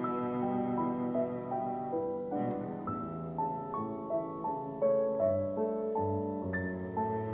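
Background piano music: a gentle melody of single notes, each struck and left to ring.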